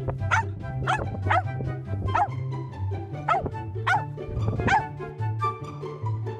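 A dog barking repeatedly, about eight sharp barks at uneven intervals, over background music with a steady bass line.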